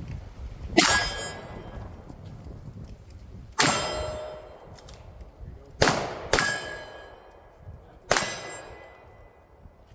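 Five pistol shots, unevenly spaced, the second pair close together, each followed by a decaying metallic ring.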